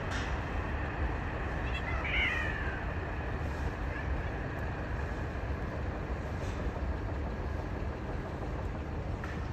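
A cat gives one short yowl about two seconds in, falling slightly in pitch, during a mating approach between cats. Beneath it is a steady low rumble of background noise.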